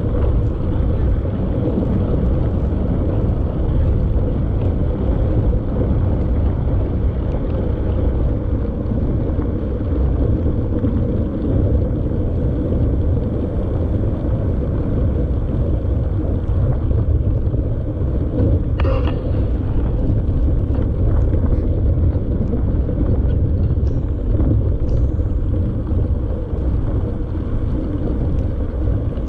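Steady low rumble of wind and riding noise on a camera mounted on a mountain bike, with light rattles throughout and a brief rasp about two-thirds of the way in.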